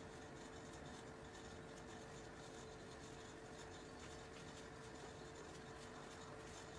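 Faint, irregular scratching of toothbrush bristles brushed along the hairline, smoothing down the edges with edge control, over steady room hiss and a steady hum.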